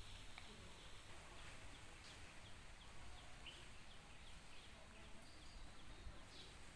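Near silence: faint outdoor ambience with a string of short, high chirps that fall in pitch, a few each second.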